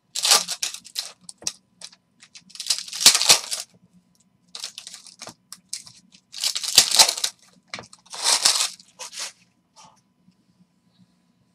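Trading card pack wrappers being torn open and crinkled in about five short crackling bursts, which stop near the end.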